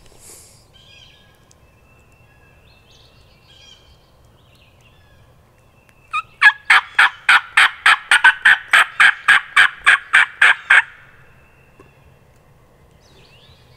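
Wild turkey calling: a loud string of about eighteen sharp, evenly spaced notes, some four a second, lasting nearly five seconds and starting about six seconds in.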